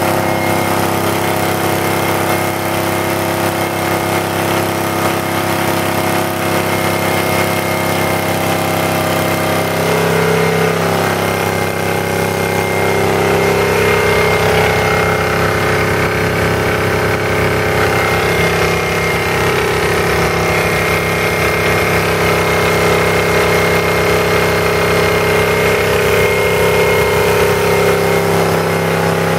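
Vintage Briggs & Stratton model NP single-cylinder engine running steadily while driving a Farmaster 600-watt generator. Its note shifts slightly about ten seconds in, then holds steady again.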